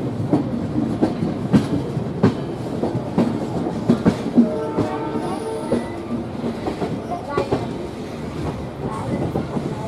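Passenger coach wheels clattering over rail joints and points: a steady rumble broken by irregular sharp clacks and knocks, with a brief whine about halfway through.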